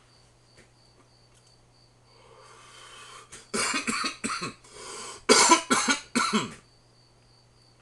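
A man coughing hard in two fits, about four coughs and then, after a short pause, about three more, preceded by a soft rising hiss.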